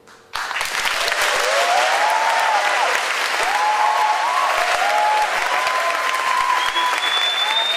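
Concert audience breaking into loud applause suddenly, right after the song's final note dies away. Cheering voices rise and fall over the clapping, and a high whistle sounds near the end.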